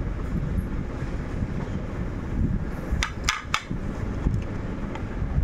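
A few quick knocks about three seconds in, as a tray of snacks is set down on the floor close to the phone, over a steady low rumble.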